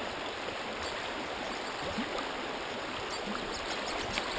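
Shallow trout stream running over riffles, a steady rush of water, with a few small splashes near the end as a hooked brown trout thrashes at the surface.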